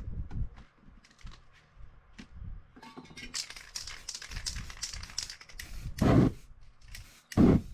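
Aerosol spray paint hissing from a can for about two seconds, then two short loud whooshes of flame as the freshly sprayed paint is set alight, near the end. Light knocks and paper handling before the spraying.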